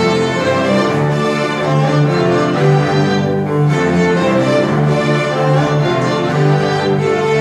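A school string orchestra of violins and cellos playing a melody in held, bowed notes at a steady level.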